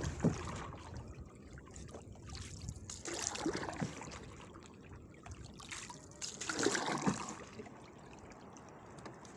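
Seawater trickling and splashing as a wet crab-trap line is hauled hand over hand into a small wooden boat, with louder splashes about three and a half seconds in and again near seven seconds.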